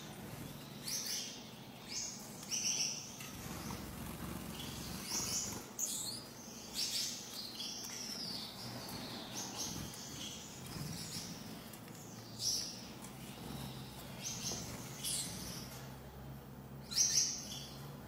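Gouldian finches in a cage calling: short high chirps come every second or so, the loudest pair near the end, over a faint steady low hum.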